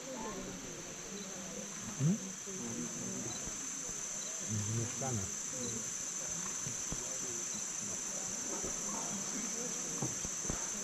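Steady high-pitched chorus of tropical insects from the rainforest, with people's voices murmuring faintly underneath and a brief louder sound about two seconds in.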